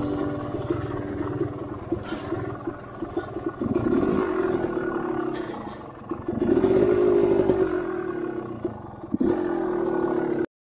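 Dirt bike engine running as it is ridden over a trail, revving up twice and holding for a few seconds before easing off, with knocks and rattles from rough ground. It cuts off suddenly near the end.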